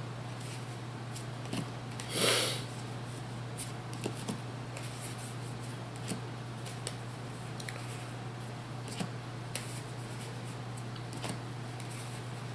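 Trading cards being handled and sorted by hand: scattered soft clicks and slides of cards against each other, with one louder brief swish about two seconds in, over a steady low electrical hum.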